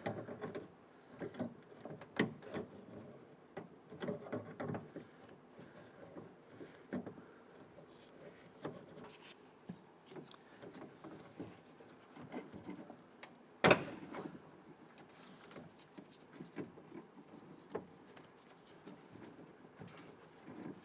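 Scattered small clicks, taps and rattles of hand work on the door latch and lock rods inside a car door shell, with one sharper, louder click about fourteen seconds in.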